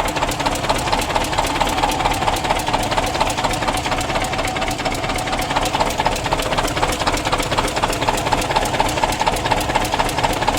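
Diesel engine running with a rapid, regular knock, which the mechanic traces to a tappet whose washer has come down.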